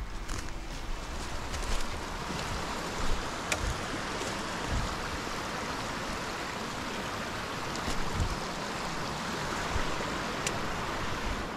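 Small woodland creek babbling over rocks, a steady rush of running water, with a couple of sharp clicks.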